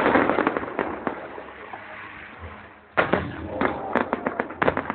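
Aerial fireworks bursting: a loud bang right at the start followed by a run of crackles that fades over a second or so, then another loud bang about three seconds in with a rapid string of crackling pops.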